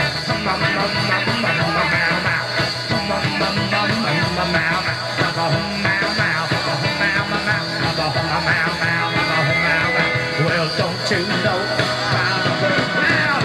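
A live rock band playing a fast, upbeat number.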